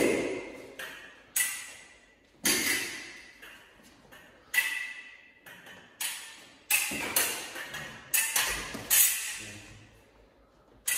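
Steel foil blades striking each other in the beats and parries of a foil lesson: sharp metallic clicks, each with a short ring, coming roughly one to two a second in irregular runs, thickest about seven to nine seconds in.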